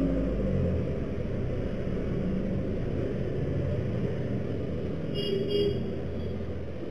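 Steady low rumble of road traffic picked up by a shop's CCTV microphone, with a brief higher tone about five seconds in.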